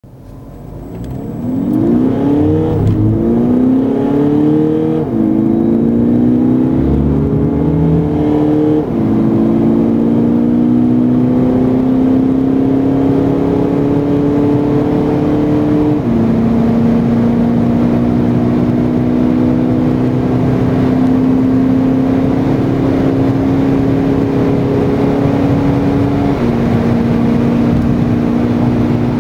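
Volkswagen Golf 6 GTD's 2.0-litre turbodiesel under full acceleration, heard inside the cabin. Its pitch climbs through each gear and drops at five quick upshifts of the six-speed DSG gearbox, about 3, 5, 9, 16 and 26 seconds in, with each gear lasting longer than the one before.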